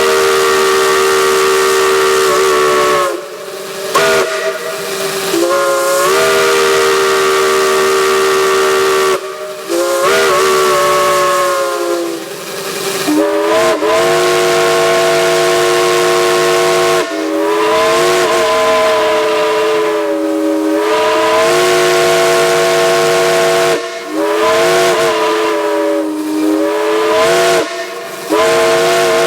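Chime steam whistles blown in a string of long blasts, each sounding a chord of several tones that bends in pitch as the valve opens and closes, with steam hiss underneath. The chord changes from one blast to the next.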